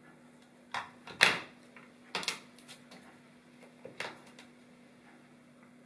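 A handful of short clicks and knocks from a handheld clamp meter being handled and set down on a tile floor, the loudest about a second in, over a faint steady hum.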